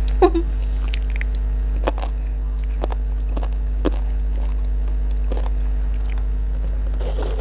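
Close-miked chewing of spicy rica-rica chicken, with scattered short mouth clicks, over a steady low hum.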